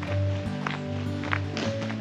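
Background music with held notes and a light percussive beat.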